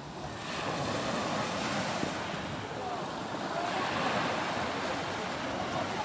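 Steady beach ambience: surf washing on the shore, with wind on the microphone.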